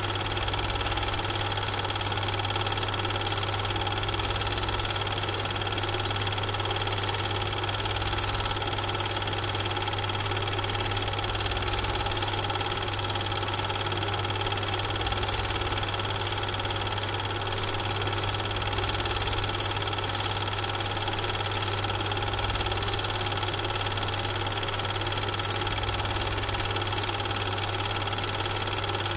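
Steady motor hum with an even hiss and a few fixed whining tones, unchanging throughout, dubbed over a silent Super 8 film.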